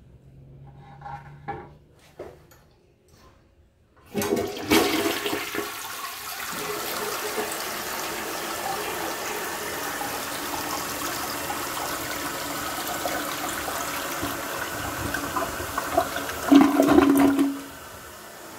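1973 Gerber Mt. Vernon toilet flushing. After a few faint knocks, the flush starts suddenly about four seconds in and runs steadily as the bowl swirls, then ends with a loud gurgle as the bowl empties near the end, dropping to a quieter steady hiss.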